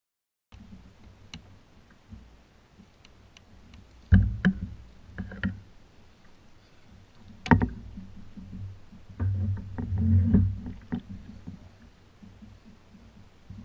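Scattered knocks and thumps of a landing net and a fish being handled on a plastic kayak. The loudest knocks come about four, seven and a half and ten seconds in, with a low rumble of handling just before the last one.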